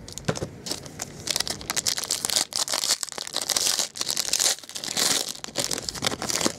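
Foil wrapper of a hockey card pack crinkling and tearing as it is handled and ripped open by hand, in several loud bursts.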